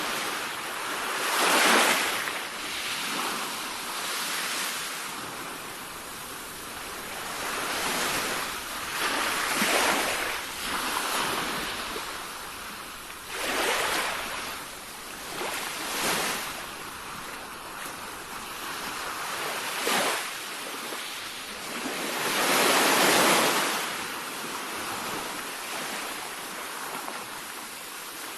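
Sea waves breaking and washing in, one surge after another at irregular intervals of a few seconds. The loudest breakers come about two seconds in and again some twenty seconds later.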